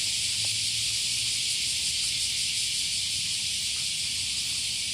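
Cicadas singing in chorus: a steady, high-pitched drone.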